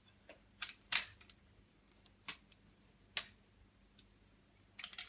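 Scattered light metallic clicks and ticks, about eight of them and irregularly spaced with the sharpest about a second in, of a small steel Allen key working the hex screws of a brass BBQ gas regulator.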